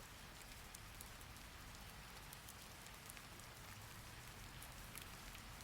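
Faint steady rain: a soft hiss with scattered patter of individual drops.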